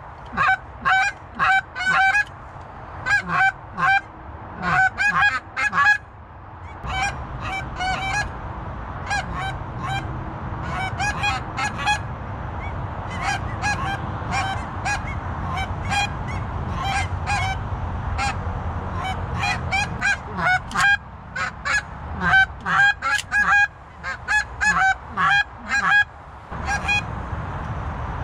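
A flock of geese honking in flight: many short calls in quick clusters, with a steady low noise underneath from about seven seconds in.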